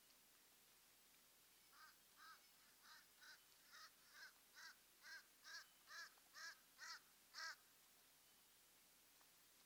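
A bird calling: a rapid series of about a dozen short, harsh calls, roughly two a second, getting louder to the last and loudest call, then stopping.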